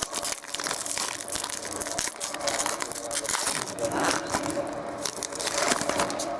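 Plastic wrapper of a trading card pack crinkling and tearing as it is ripped open, a dense run of crackles.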